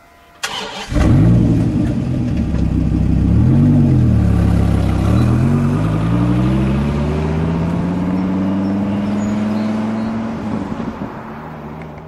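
Dodge Viper's V10 cranked and started, revved once, then pulling away with the engine note rising steadily as it accelerates, fading near the end.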